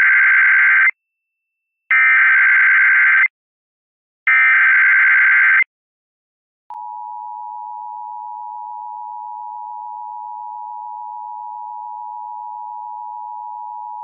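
Emergency Alert System broadcast: the SAME digital header, sent three times as bursts of warbling data tones about a second and a half long. About seven seconds in, the steady two-tone EAS attention signal starts and holds.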